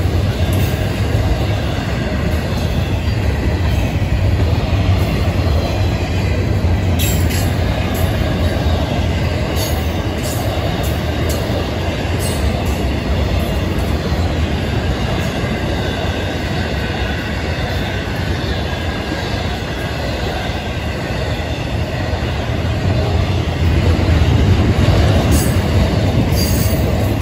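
Florida East Coast Railway freight train of intermodal well cars and flatcars rolling past: a loud, steady rumble of steel wheels on rail, with a thin high wheel squeal. Scattered sharp clicks come from the wheels, in a cluster about a third of the way in and again near the end.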